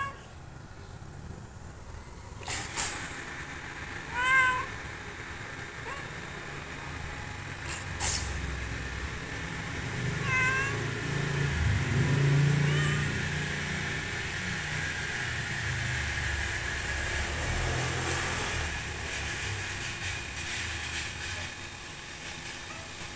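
Black domestic cat meowing twice, short calls about four and ten seconds in, with two sharp taps in between. A low steady rumble runs through the second half.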